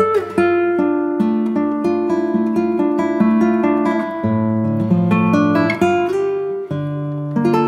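Background music: acoustic guitar playing a quick, even run of plucked notes over a steady chord pattern.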